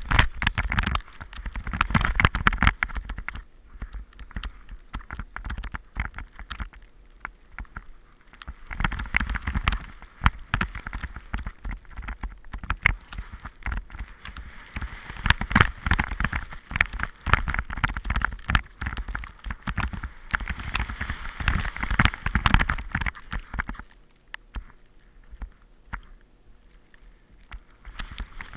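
Skis running through deep powder snow: a rushing, swishing hiss that swells and fades in surges with the turns, with a low rumble of air against the camera's microphone, and it goes quieter near the end.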